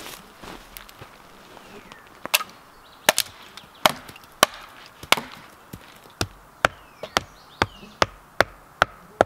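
Hammer striking wood again and again: sharp knocks, a few at first and then about two a second from about two seconds in.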